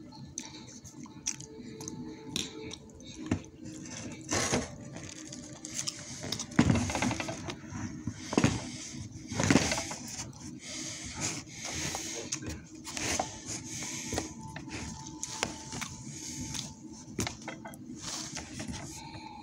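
Rustling, clicks and knocks close to the microphone as a phone and bedding are handled, over a steady low hum and faint background music.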